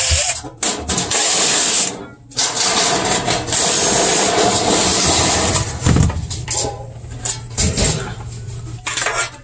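DeWalt cordless driver spinning screws out of the sheet-metal evaporator cover of a commercial freezer, in two long runs with a short break about two seconds in. A few lighter knocks follow near the end as the loosened panel is handled.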